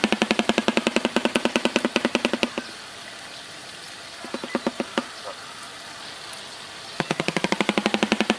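Shoebill clattering its bill: a loud, rapid rattle of knocks that breaks off about two and a half seconds in. A few scattered clacks follow near the middle, and the rapid rattle starts again about seven seconds in.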